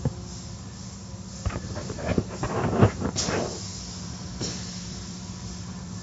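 Car wash machinery running with a steady hum; around the middle, a cluster of knocks and a rush of spraying, with short hisses.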